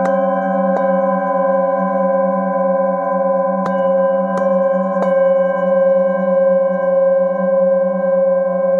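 Singing bowls ringing in a sustained, layered tone with a slow wavering pulse. It is renewed by about five light mallet strikes on the hand-held bowl: two near the start and three in the middle.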